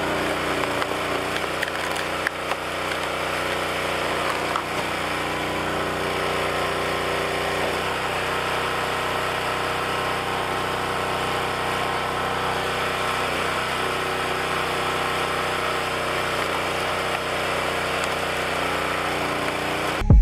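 Wolfe Ridge 28 Pro hydraulic log splitter's gas engine running steadily under load while it splits logs, with occasional knocks and cracks of the wood.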